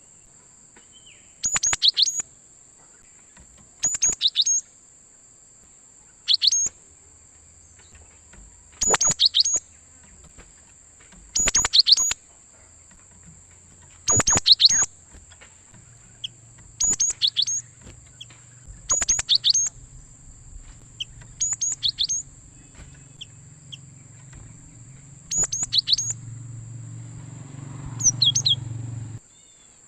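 Cinereous tit (gelatik batu) singing: short sharp phrases of quick falling notes, repeated about every two to three seconds, over a steady high-pitched tone. A low hum comes in about halfway, grows louder near the end and stops shortly before it.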